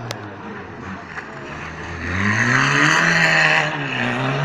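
Small hatchback rally car's engine accelerating hard out of a slow turn: the revs climb steeply about two seconds in, dip briefly near the end as it shifts up, then climb again.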